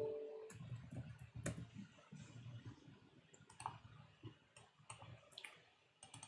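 Faint, scattered clicks of a computer keyboard and mouse, a few keystrokes spread over several seconds. A steady electronic tone fades out in the first half second.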